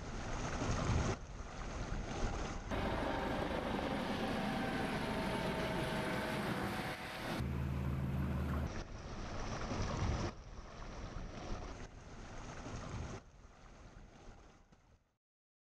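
Motorboat engine running, with wind on the microphone and water rushing, in several short clips cut together. The sound grows quieter near the end and then stops.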